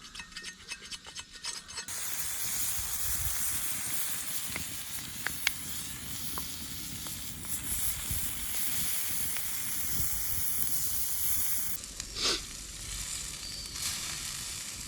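Horumon (offal) sizzling on a hot iron griddle over a wood-fired kamado. The sizzle becomes loud and steady about two seconds in, eases near twelve seconds, and a brief sharp sound follows the drop.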